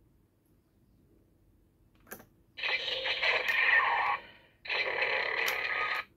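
Bootleg CSM Amazons Driver toy belt playing its electronic sound effects through its built-in speaker: a click about two seconds in as the grip is worked, then two bursts of sound, each about one and a half seconds long.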